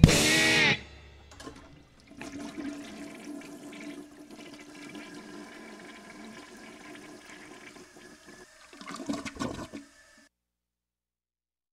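The band's final chord cuts off within the first second. Then a toilet flushes: water rushes steadily for several seconds, a louder gurgle comes near the end, and the sound stops abruptly.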